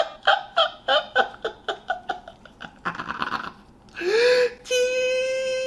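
A man laughing in quick repeated bursts for about three seconds, followed near the end by a single long held tone that rises at its start.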